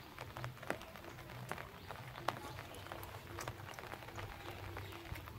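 Outdoor ambience beside a flooded paddy: many faint, irregular clicks and ticks over a steady low hum.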